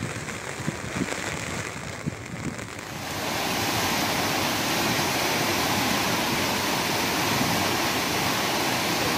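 Flash-flood torrent of muddy water rushing past a footbridge: a loud, steady rushing that comes in suddenly about three seconds in, after a quieter stretch of noise.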